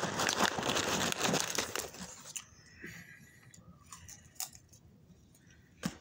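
Paper popcorn bag crinkling and rustling as a hand digs into it, for about the first two seconds. Then quieter faint crunching as popcorn is eaten, with a sharp click near the end.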